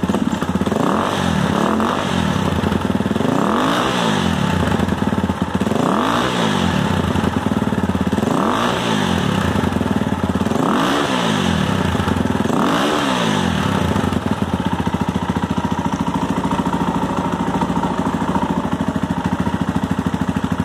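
KTM motocross-derived motorcycle's single-cylinder engine running through an aftermarket Lexx straight-through slip-on exhaust. The throttle is blipped about seven times over the first thirteen seconds, each rev climbing and falling back, and then the engine settles to a steady idle. The note has a little bit of muffle but is still a little bit loud.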